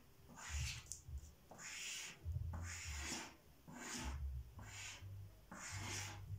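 Brown chalk pastel scraping across paper in short, repeated drawing strokes, about one a second, with a dull low thud under several of them.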